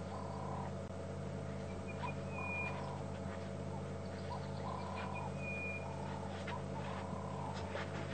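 Repeated wild animal calls: a low call about every two seconds and a short high note about every three seconds, over a steady low hum.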